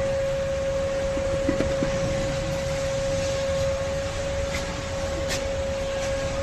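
Front brake caliper giving a steady, unbroken squeal on one pitch over a background rumble, with a few faint clicks. This is the brake noise the car is being checked for, heard on both front wheels.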